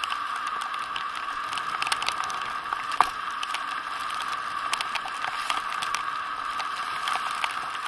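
A bicycle rolling on a wet road: steady tyre hiss with scattered light clicks and rattles, and one sharper click about three seconds in.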